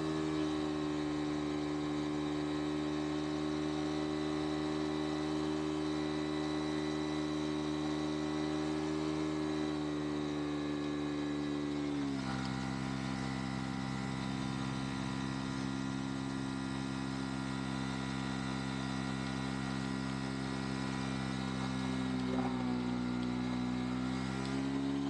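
Bajaj Pulsar NS200's single-cylinder engine held at steady high revs, the pitch stepping down a little about halfway through and rising again near the end.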